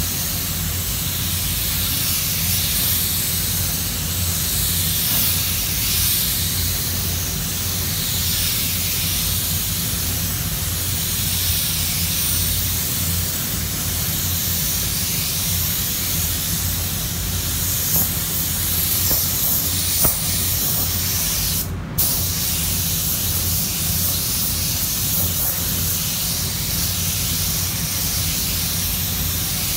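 Air spray gun hissing steadily as base-colour paint is sprayed, cutting off for a moment about two-thirds of the way through. Under it is the steady low hum of the spray booth's ventilation.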